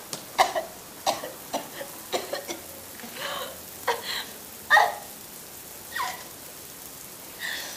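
A person struggling on the ground gives a dozen or so short, irregular gasps and cries, spread out with gaps between them.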